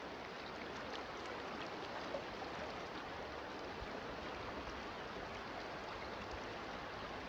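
Shallow river water flowing over stones: a steady rush.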